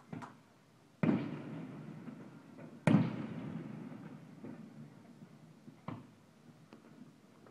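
Aerial fireworks shells bursting: two loud booms about a second in and near three seconds, each trailing off in a long rolling echo, with fainter pops just after the start and near six seconds.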